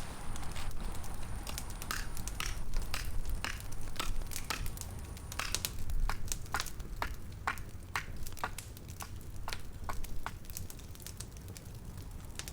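Wood fire crackling, with sharp irregular snaps and pops, two or three a second, over a low steady rumble.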